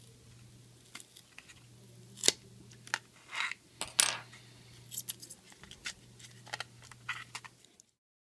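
Scattered sharp clicks and short scrapes of small parts being handled on a Luvion Grand Elite baby monitor during a battery replacement, over a faint steady hum.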